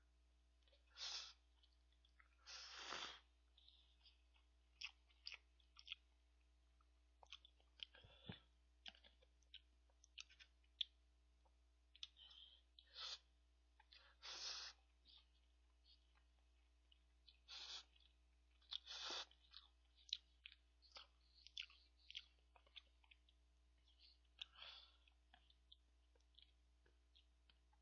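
Close-miked eating of instant cup ramyeon: short, wet slurps and chews of noodles recurring every second or two, the loudest slurps lasting about half a second.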